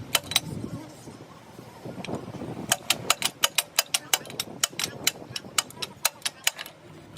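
Rapid sharp metallic clicks from hand tools working on bulldozer engine parts, about five a second in a run that starts a little before three seconds in and stops shortly before the end.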